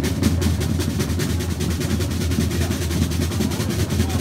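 A group of rope-tensioned side drums played together in a rapid, continuous drum roll.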